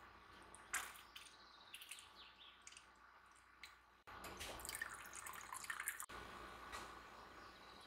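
Faint kitchen sounds: a run of small, irregular clicks and taps over a low background hiss, with sudden changes in the background about 4 and 6 seconds in.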